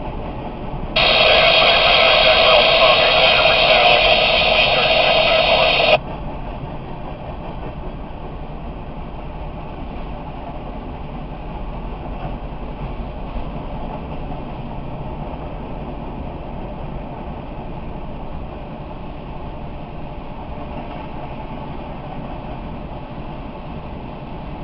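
A railroad scanner radio lets out a loud burst of static about a second in that cuts off suddenly some five seconds later. Under it, and after it, the steady low rumble of a freight train rolling past, heard from inside the parked car.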